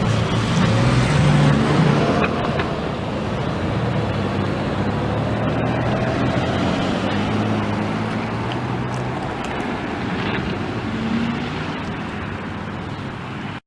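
Diesel locomotive engines rumbling steadily, a low drone with slowly shifting pitched tones; it cuts off abruptly at the end.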